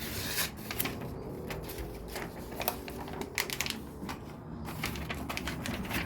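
Plastic LEGO pieces clicking and clattering as they are handled and pressed together, a run of short, irregular clicks.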